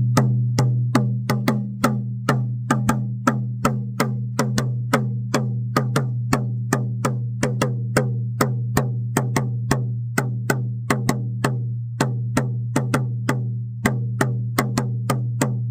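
Shamanic stag drum beaten in a steady rhythm, about three strokes a second. Each stroke is a sharp hit over a deep, sustained ringing tone that carries from beat to beat.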